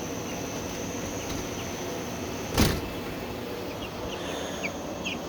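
Steady high-pitched chirring of night insects such as crickets, with one short sharp knock about two and a half seconds in and a few brief high chirps near the end.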